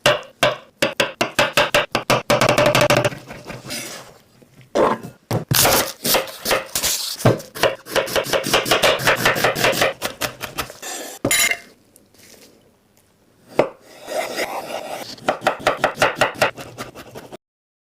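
Kitchen knife chopping on a cutting board in quick runs of strokes, several a second, broken by short pauses, stopping near the end.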